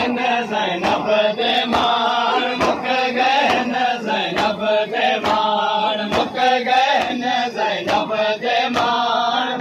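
Men chanting a noha lament in unison, with sharp hand slaps on bare chests (matam) keeping a steady beat about twice a second.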